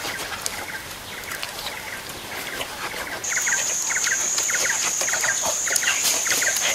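Forest ambience: a bird calls in short double chirps about twice a second over scattered sharp clicks, and a steady high-pitched whine starts suddenly about three seconds in.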